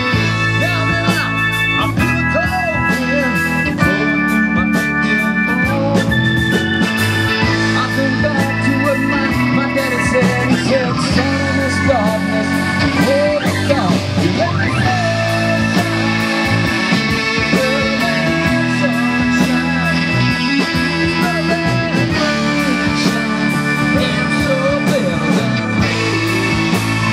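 Live rock band playing an instrumental passage: an electric guitar lead with bending notes over held keyboard chords, with bass and drums underneath.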